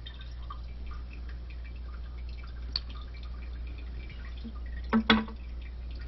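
Small plastic clicks and taps of a Fluidmaster toilet tank lever's parts being handled as its lock nut is turned, with one sharp click midway and a louder double clack near the end, over a steady low hum.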